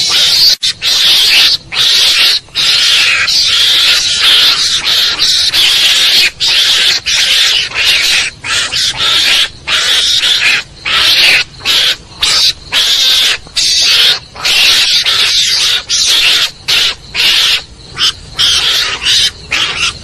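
Recorded mongoose (garangan) lure call used to attract mongooses: harsh, hissy screeching calls repeated back to back, broken by short gaps about once a second.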